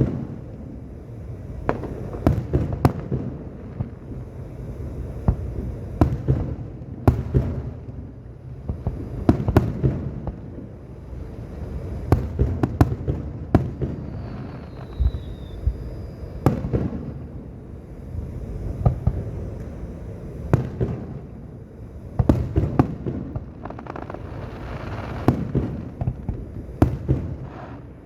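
Aerial fireworks display: a continuous run of sharp bangs and booms at irregular intervals, often more than one a second, with a low rumble between them.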